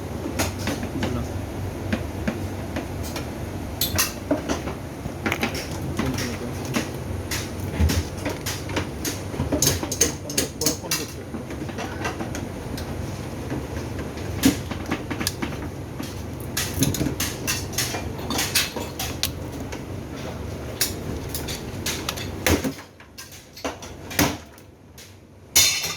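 Scattered clanks, knocks and rattles of hard parts being handled, as in taking apart a top-load washing machine, over a steady low rumble that stops about three seconds before the end.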